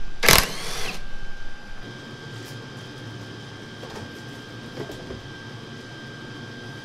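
A cordless drill whirs briefly near the start, unscrewing a fastener at a car's tail light. After that comes a steady hum with a constant high whine from the workshop heater, with a few faint knocks as the rear bumper is handled.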